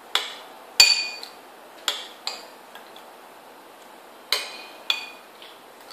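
A metal spoon clinking against a small white bowl as a toddler scoops from it: six sharp, ringing clinks at uneven intervals, the loudest about a second in.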